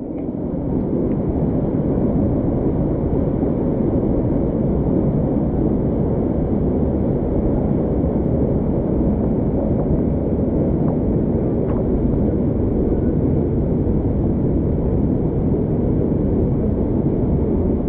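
Steady, low-pitched rush of a canyon torrent's flowing water, unbroken throughout.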